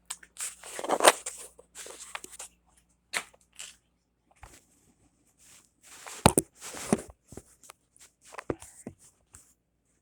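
Flat-pack desk parts being handled and turned around: irregular knocks, scrapes and rustles, with the loudest knocks about one second in and about six seconds in.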